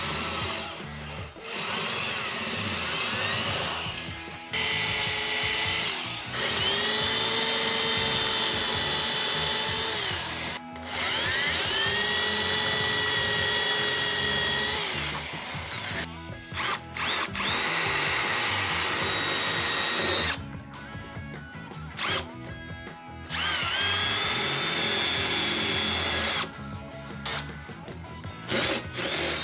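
Cordless drills with masonry bits boring into concrete block, used in turn: about six separate runs of motor whine, each winding up as the trigger is squeezed and down as it is released. Background music plays throughout.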